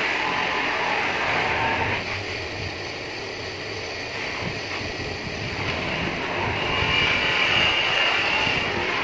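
Bench polishing motor running with its buffing wheel rubbing against an aluminium motorbike hub brake plate, a steady hissing grind. It eases off about two seconds in and builds again later, with a high whine as the part is pressed harder against the wheel.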